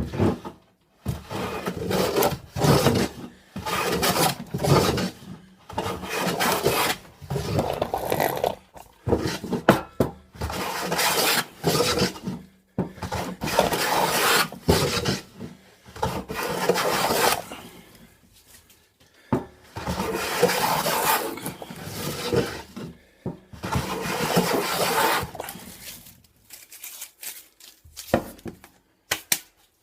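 Rough scraping strokes of a tool worked back and forth on wood, each under a second to about a second long, coming in uneven runs and stopping about 26 seconds in.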